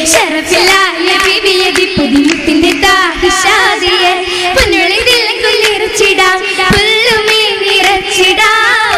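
Girls' voices singing a Mappila song together for an Oppana dance, with sharp hand claps cutting in now and then.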